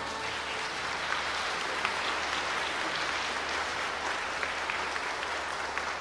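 Congregation applauding steadily after the choir's final chord, a dense patter of many hands clapping.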